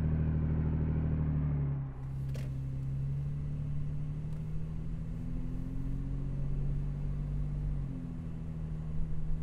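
Toyota 4Runner's 4.0-liter V6 running at low revs through an MBRP Armor Lite single-exit cat-back exhaust. For about two seconds it is heard loud at the tailpipe; then, more quietly, from inside the cabin, with the revs rising gently a couple of times.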